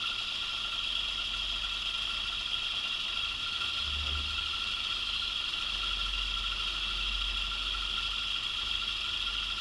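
1920s IXL lathe running, belt-driven by its small single-phase electric motor: a steady whine with a low hum, and a brief low thump about four seconds in.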